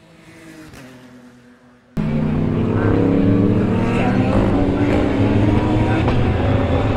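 A lone race car engine heard at a distance, its pitch dropping as it passes. About two seconds in it cuts abruptly to several GT race car engines running loud together, their notes climbing as they accelerate.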